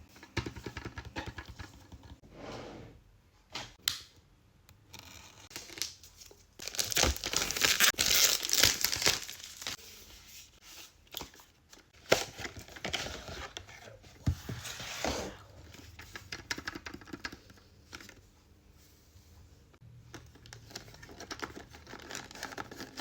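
Blind-box packaging being torn open and crinkled by hand: a series of rips and rustles, the loudest and longest about a third of the way in, with shorter tears and crinkling around it.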